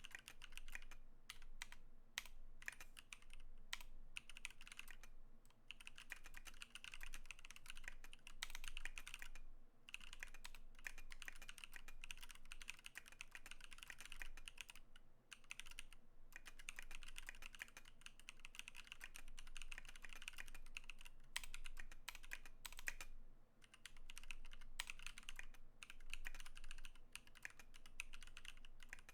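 KBDfans KBD19x mechanical keyboard with lubed Holy Panda tactile switches being typed on steadily: a fast stream of key clacks, broken by a few short pauses.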